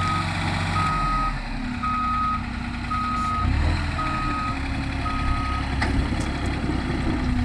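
Reversing alarm of a truck-mounted forklift laden with wood beams: single-tone beeps about once a second, six of them, stopping a little past halfway, over the forklift's engine running.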